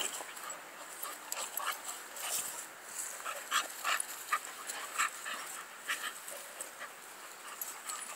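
Dogs play-fighting: a string of short, irregular dog noises.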